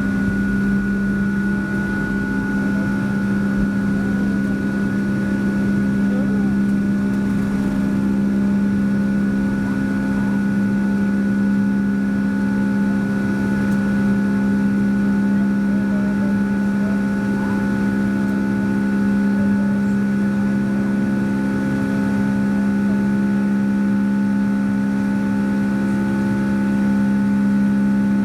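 Boeing 757 cabin noise from its Rolls-Royce RB211 engines, heard from inside the cabin: a steady, loud drone with a constant low hum.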